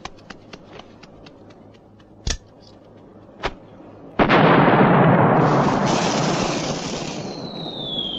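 Large firework set off: a quick run of small crackling clicks from the burning fuse, two sharp pops, then about four seconds in a loud rushing hiss as it shoots skyward, lasting several seconds, with a whistle falling in pitch near the end.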